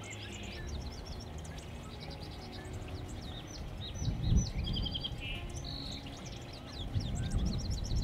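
Small songbirds chirping and twittering: many short high chips overlapping, with a couple of quick trills in the middle. A low rumble runs underneath, with a louder low thump about four seconds in and another near the end.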